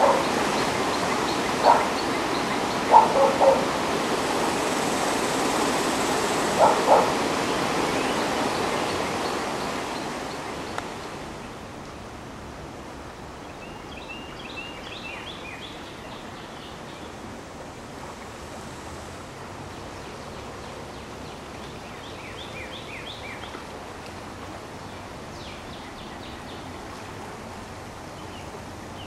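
Floodwater of the swollen Guadalupe River rushing, a loud steady noise broken by a few short animal calls in the first several seconds. About ten seconds in the rush fades to a softer, lower flow, and small birds chirp in short bursts over it.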